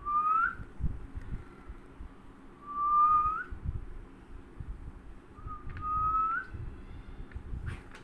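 A person whistling three long notes a couple of seconds apart. Each note is held on one pitch, then slides up at the end.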